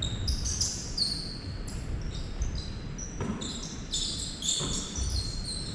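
Basketball bouncing on a hardwood gym floor, with many short, high sneaker squeaks from players moving on the court.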